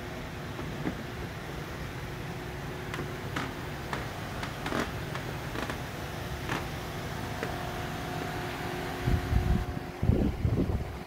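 Steady low hum of a large hall's ventilation, with scattered light clicks and taps. Near the end come a few louder low thumps and rumbles.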